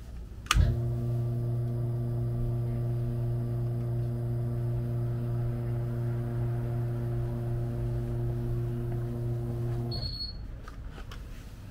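Electric oil-dispenser pump motor humming at one steady pitch while fresh oil is pumped through a hose into a scooter's engine. It switches on with a click under a second in and cuts off sharply near the end, followed by a brief high beep.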